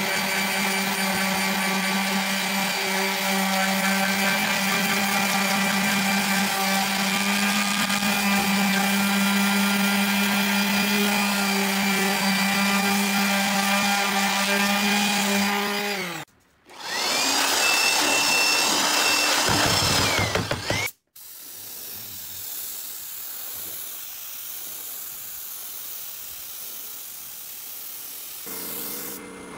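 Electric palm sander running steadily as it sands the charred wood slats of a stool seat, its motor hum then dropping in pitch as it is switched off and winds down about halfway through. After a short break comes a different loud machine sound with a whine that rises and falls for a few seconds, then a quieter steady hiss.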